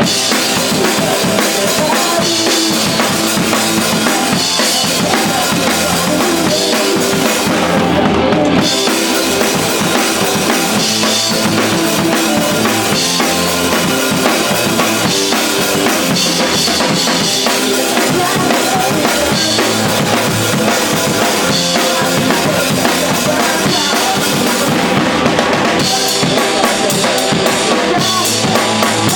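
A band playing live with a full drum kit driving the song, kick and snare prominent; the cymbals' high end drops out briefly about eight seconds in.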